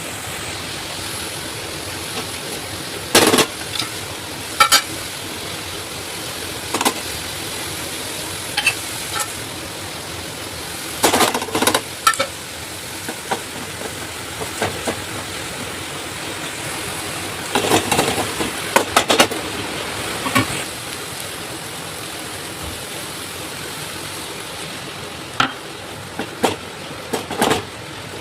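Food sizzling steadily in a frying pan while a utensil stirs it, knocking and scraping against the pan in short clusters every few seconds.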